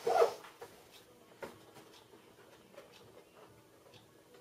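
Cardboard box being opened and handled: a brief scrape as the lid flap swings open, then a few light taps and rustles as hands move among the papers and cables inside.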